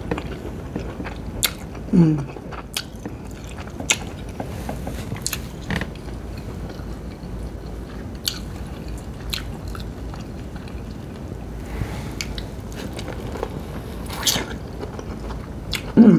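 Close-miked eating sounds: wet chewing, lip smacks and small mouth clicks while eating saucy corn on the cob and king crab, with a brief low hum about two seconds in and again near the end.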